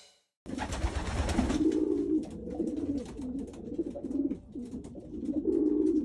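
Racing pigeons cooing, starting about half a second in: low, wavering coos repeated several times over a scatter of light clicks and scratches.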